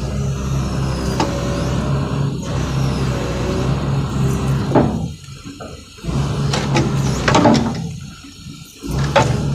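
Excavator-mounted hydraulic breaker hammer firing its chisel into the ground in rapid, even blows, stopping briefly about five seconds in and again about eight seconds in before starting up again. Its blow rate has just been set slower on the interval adjuster.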